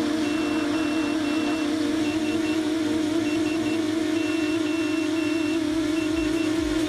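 7-inch FPV quadcopter's motors humming steadily at cruise, while its buzzer beeps SOS in Morse over and over: the flight controller's signal-lost failsafe alarm.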